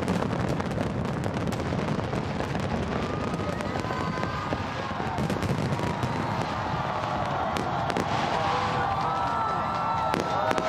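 Large fireworks display: a dense, continuous crackle and popping of many shells bursting at once, with high whistling tones that rise and fall from about three seconds in.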